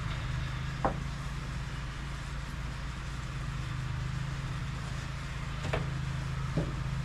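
A steady low engine hum, with a couple of faint light knocks, about a second in and near the six-second mark.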